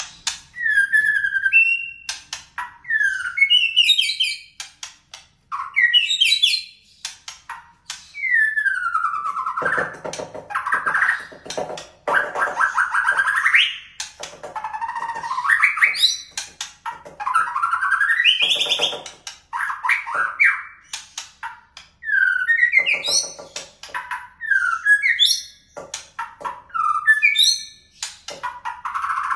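White-rumped shama (murai batu) singing a loud, varied song: clear gliding whistles, trills and rapid chips in phrases with short pauses between, mixed with canary-style trilled passages. A few phrases in the middle are harsher and buzzy.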